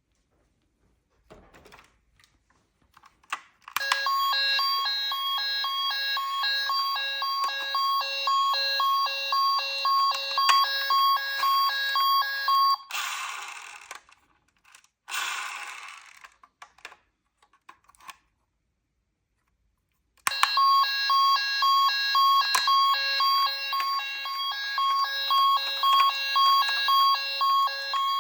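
Toy emergency vehicle's electronic siren sounding a fast repeating pattern of beeping tones for about nine seconds, stopping, then starting again about twenty seconds in. In the gap, two short rushing noises; a few small handling clicks come before the siren first starts.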